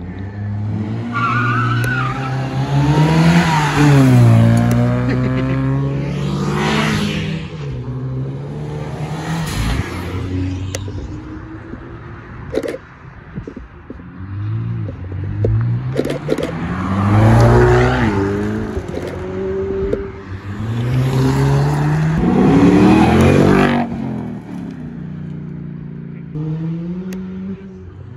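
Cars driving out one after another, their engines revving up and dropping back through gear changes. There are three loud surges: near the start, in the middle, and about three-quarters of the way through, with quieter engine running between them.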